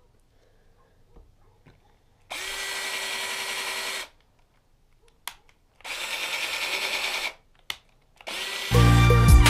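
A power drill whirring in two short bursts, each starting and stopping abruptly as the trigger is pulled and released, then starting again. Loud background music comes in near the end.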